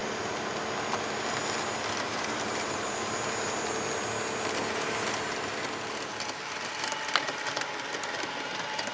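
HO-scale model train running on sectional track: the Model Power two-wheel-drive critter switcher's cheap motor giving a steady buzzing, whining noise as it struggles up a grade. Partway through, a Walthers CSX GP15 diesel runs instead, a little quieter, with a few light clicks from the wheels and track.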